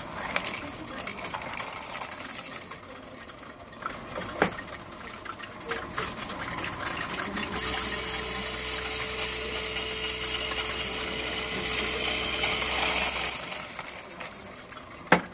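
Coin-counting machine taking in a load of loose pennies and mixed coins: coins rattle and clink as they are pushed from the tray into the slot. About halfway through the machine's motor runs with a steady hum while it counts, and near the end there is a single sharp knock.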